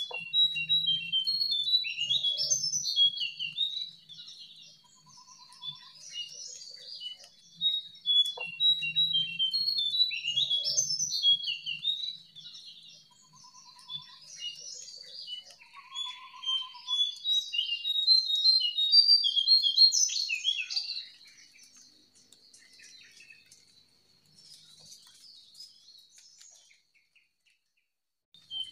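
A wild jongkangan bird singing: three loud bouts, each a few seconds long, of rapid, jumbled, up-and-down twittering notes, with quieter scattered calls between them. A faint steady high tone runs underneath.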